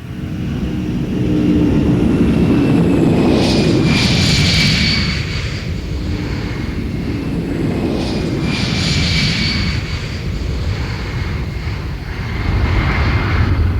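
Boeing 747 jet engines going by: a deep rumble with a high whine that slides slowly down in pitch, swelling three times.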